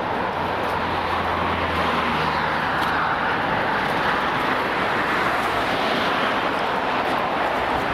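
Steady road traffic noise from passing cars and trucks, an even rush of tyres and engines, with a low engine drone during the first two seconds or so.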